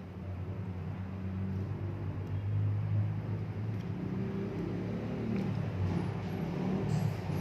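A motor vehicle's engine running with a steady low hum, its pitch wandering up and down in the second half.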